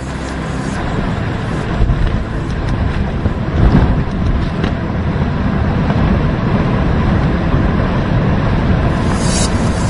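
Hurricane wind and driving rain, the gusts buffeting the microphone in a steady, heavy rumble, with a louder surge a little over a third of the way in.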